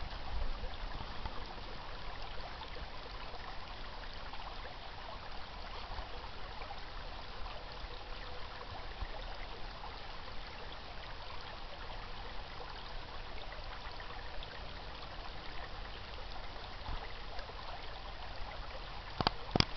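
Small brook babbling steadily. A couple of sharp knocks come near the end.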